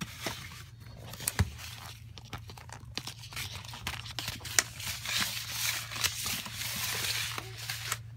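Blades of cat grass rustling and crackling right against the microphone. The crinkly noise has scattered sharp clicks and becomes a dense rustle from about three seconds in, with one loud snap about halfway.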